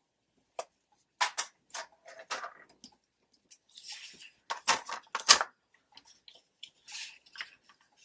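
Handling of paper pieces: light rustling and scattered taps, with two sharper knocks about five seconds in as a plastic paper trimmer is set down on the cutting mat.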